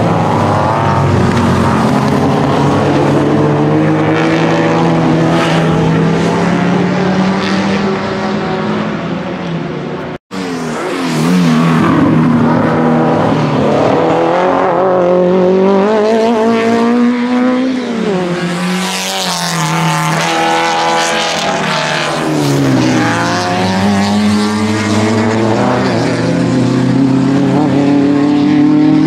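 Several Alfa Romeo and Fiat saloon racing cars' engines running hard as they pass through the corners, their pitch climbing and dropping again and again with acceleration, gear changes and braking. The sound cuts out for an instant about ten seconds in.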